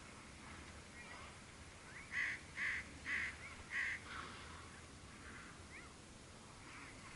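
A crow cawing four times in quick succession, with fainter calls before and after.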